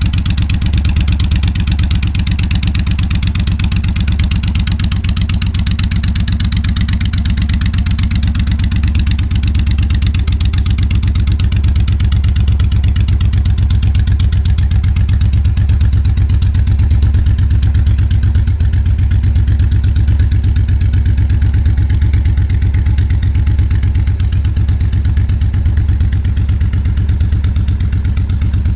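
A 1400 cruiser motorcycle's engine idling steadily through Cobra drag pipes, a deep, even exhaust pulse with no revving.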